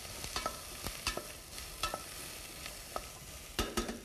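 Wooden spoon stirring diced celery and garlic in a stainless steel saucepan: scattered light knocks of the spoon against the pan over a faint sizzle of the vegetables sweating.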